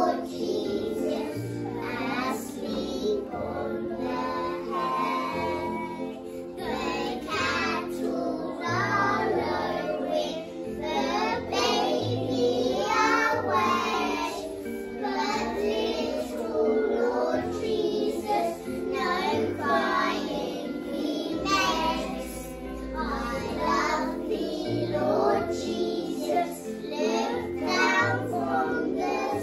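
A class of young children singing a song together with hand actions, over recorded backing music with a steady bass line.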